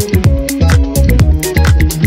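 Upbeat electronic dance music with a steady beat, bass line and melody.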